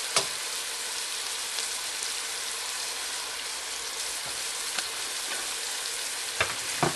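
Chopped onion and garlic sizzling in olive oil in a stainless steel stock pot over medium heat: a steady frying hiss. A sharp knock comes just after the start and a few lighter knocks near the end.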